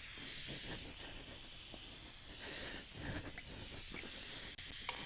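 The factory nitrogen holding charge of a new R134a refrigerant recovery cylinder hisses out steadily through a partly opened valve as the cylinder is vented down toward a few psi. There are a few faint ticks in the second half.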